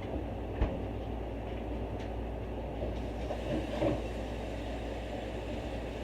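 Steady low background hum, with one sharp knock just over half a second in and a brief clatter of higher sound around four seconds in.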